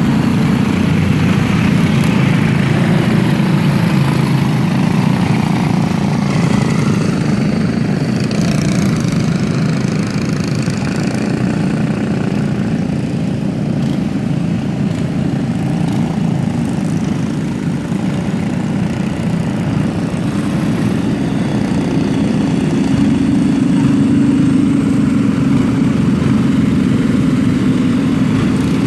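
Microstock race cars' small engines running at racing speed, a steady loud drone that swells near the end as the pack passes close.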